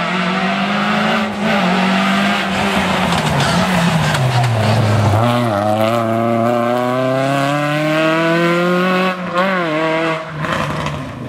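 Renault Clio rally car's engine at full throttle. It drops in pitch about four seconds in as it brakes and downshifts for the corner, then rises in one long pull as it accelerates out, with a quick gear change near the end as it pulls away.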